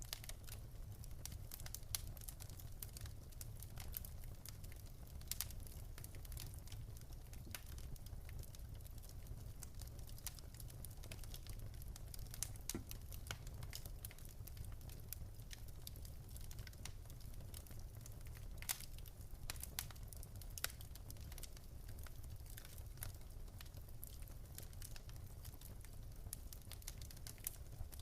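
Wood fire crackling in a fireplace: irregular sharp pops and snaps scattered throughout, over a low steady rumble.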